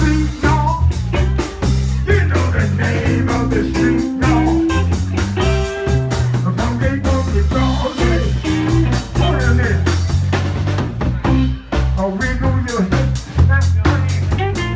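A live band playing an upbeat groove, with drum kit, electric guitar and a bass line that moves every half second or so.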